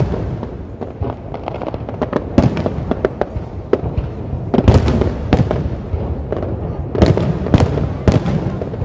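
Aerial fireworks shells bursting in quick succession: many sharp bangs and crackles over a steady low rumble, thickest around the middle and again near the end.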